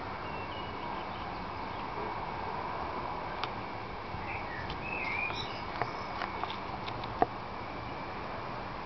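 Short bird chirps about halfway through, over a steady outdoor background noise, with a few sharp clicks scattered through the second half, the loudest about seven seconds in.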